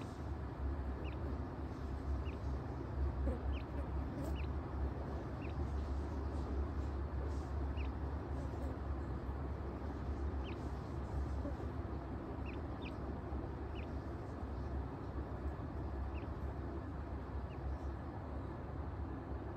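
Teetar (francolin/partridge) chick giving short, high, thin peeps at an uneven pace of about one a second, over a steady low hum.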